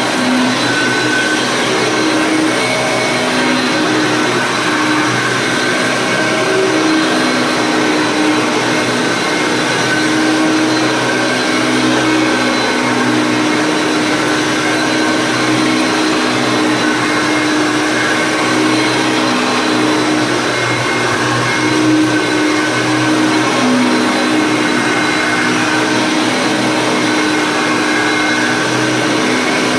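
Vintage Hoover Concept One self-propelled upright vacuum cleaner running steadily, its motor hum shifting a little in pitch now and then.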